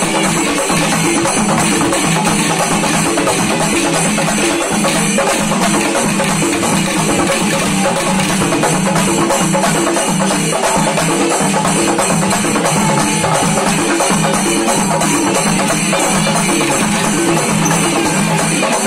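Loud festival percussion ensemble drumming a steady, driving beat, with a continuous dense wash of sound.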